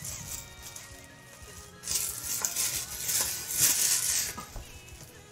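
Cardboard figure box being handled and turned over, rustling and scraping against the desk and hands in two bursts, the second and louder one about three and a half seconds in.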